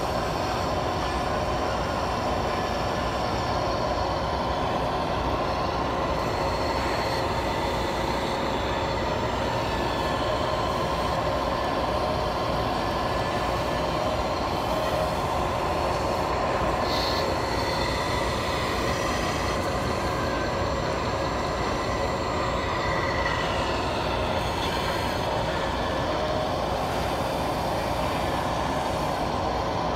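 Electric hydraulic pump of a radio-controlled O&K RH6.6 model excavator whining steadily while it digs and swings, its pitch shifting slightly a few times as the arm works.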